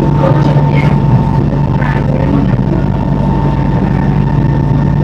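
SMRT metro train running at speed, heard from inside the carriage: a loud, steady rumble with a constant low hum and a thin higher whine over it.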